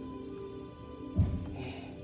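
Soft background music with long held tones. About a second in, a single loud, low thump.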